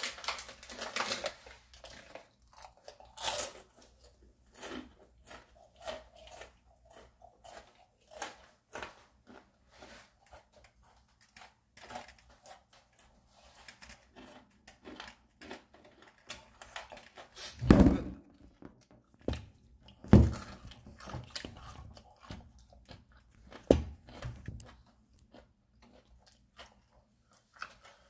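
A person biting and chewing banana close to the microphone: many small wet mouth clicks and smacks, with three louder thumps in the second half.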